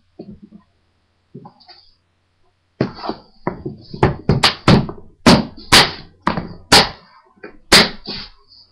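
SRC hard gun case being shut: the lid comes down with a thunk about three seconds in, then a run of sharp snapping clacks as the front clip latches are pressed closed.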